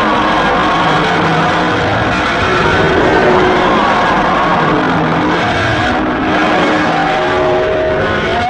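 Loud, dense music with a distorted, rock-like sound and many sustained tones shifting in pitch.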